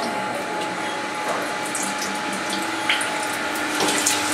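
Milk poured in a thin stream from a carton into a stainless-steel chocolate machine tank, splashing over a steady machine hum. A couple of short clicks near the end.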